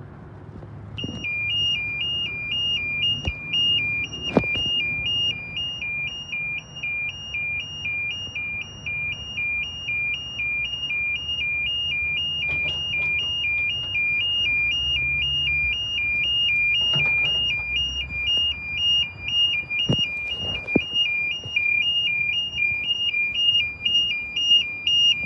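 Level crossing warning bell, an electronic alarm that starts about a second in and alternates evenly between two high tones. It signals that the crossing has activated for an approaching train.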